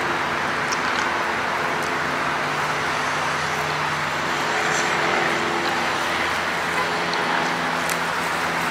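Steady hum of a running motor vehicle with an even rush of air, a few low droning tones shifting slightly in pitch partway through, and a few faint small clicks.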